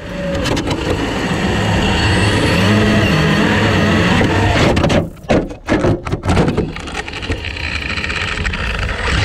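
On-board sound of a 1/10-scale Tamiya TT-02 RC car driven flat out: the Fuze 5800KV brushless motor's whine with tyre and wind noise rushing past the camera. About five seconds in the sound breaks into a rapid run of knocks and cut-outs as the car is jolted and slows, then the motor and tyre noise go on more quietly.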